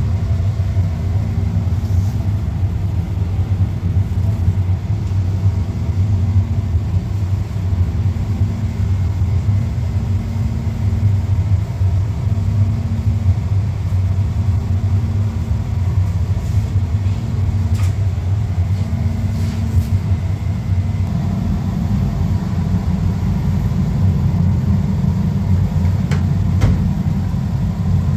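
Steady low hum of running kitchen machinery, with a few light clicks near the end.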